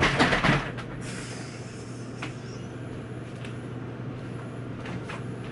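Clothing rustling close to the microphone for about the first second as someone gets up past it, then a steady low hum of room noise with a few faint knocks.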